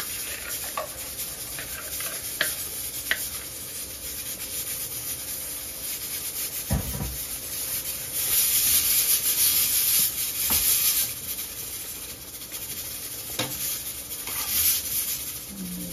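White rice tipped into a large metal pot of simmering chicken and liquid, then stirred and scraped with a slotted spatula, swishing and rubbing against the pot. A single low knock about seven seconds in, and the stirring is loudest from about eight seconds.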